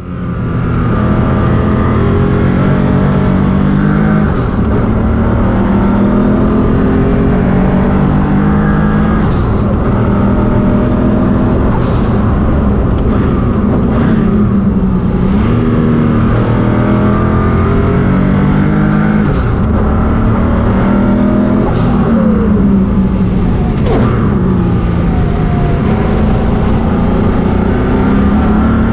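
Koenig C62 Porsche 962 race car's twin-turbocharged flat-six heard from inside the cockpit at racing speed, its engine note climbing as it accelerates and dropping on upshifts and braking, again and again. A few brief sharp cracks stand out over the engine.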